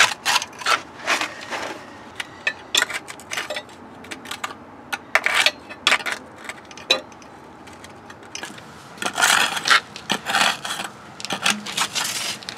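A long-handled hooked metal scraper dragged along the joint between a stucco foundation wall and concrete pavers, scraping out gritty dirt and debris in irregular strokes, with heavier bursts of scraping near the middle and toward the end.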